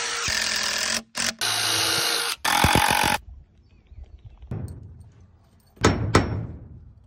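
A DeWalt cordless drill-driver runs in three short bursts, driving screws into wooden boards, the last one winding down about three seconds in. A few sharp knocks follow near the end.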